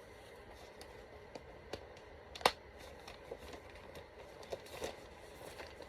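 Faint handling of a child's raincoat and its rain-guard piece, with scattered small clicks and one sharp click about two and a half seconds in.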